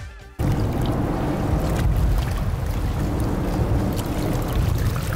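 Music cuts off about half a second in, giving way to a boat under way: a Yamaha 50 hp outboard running steadily, mixed with rushing wind on the microphone and water noise.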